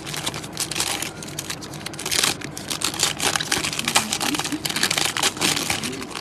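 Foil wrapper of a Panini USA baseball trading-card pack being torn open and crinkled by hand: a dense run of crackling, loudest in the middle.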